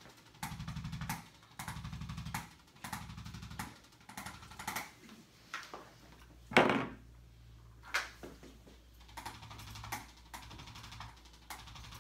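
Handheld chiropractic adjusting instrument firing against the spine in repeated bursts of rapid taps, each burst under a second long and about one a second at first, then shorter and sparser. About halfway through one loud, sharp sound stands out, followed by a steady low hum.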